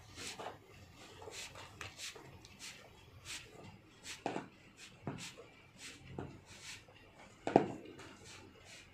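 Bundle of insulated electrical wires being pushed through a conduit: scattered short rustling and scraping, with a sharp knock near the end.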